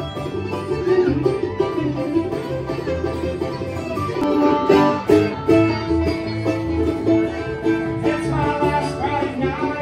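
A band playing live country-style music with picked string instruments in an instrumental passage, no vocals.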